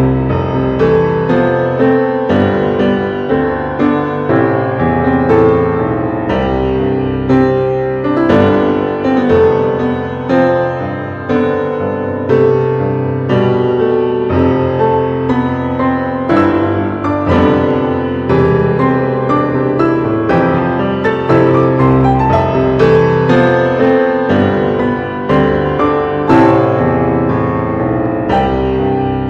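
Background music: steady piano or electric-piano music with a regular beat of notes.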